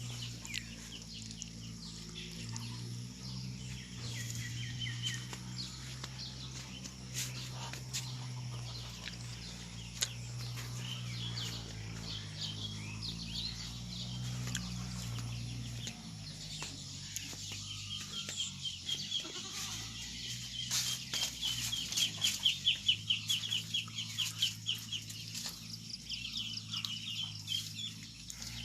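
Chickens calling, with a run of quick high repeated calls in the second half. A steady low hum and scattered clicks run underneath.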